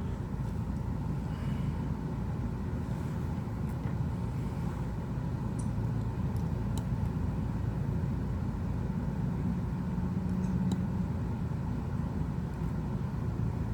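Steady low background rumble, with a few faint light clicks scattered through it.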